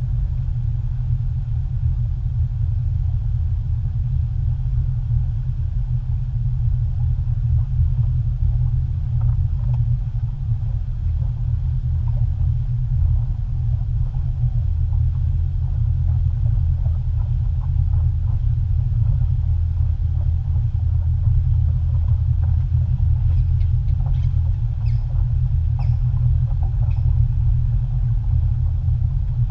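Boat engine running at slow, no-wake speed: a steady low rumble with no change in pitch.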